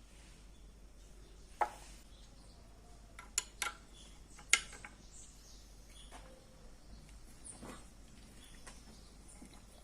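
Hard objects clinking and knocking as they are handled: four sharp clicks within about three seconds, then a few faint taps.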